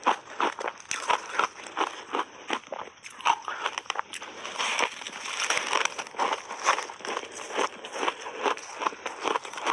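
Close-miked biting and chewing of crunchy frozen mixed ice coated in purple powder and matcha powder: rapid, irregular crackling crunches, with a big bite into a chunk about four seconds in.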